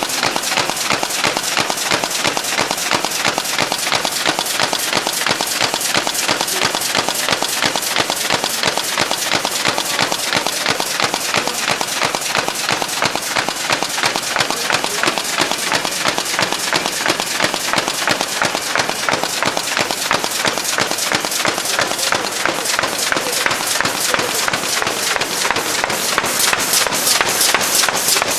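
Signature FG carton folding machine running at speed, a fast, even mechanical clatter as 6-bottle carrier blanks are fed through; it grows a little louder near the end.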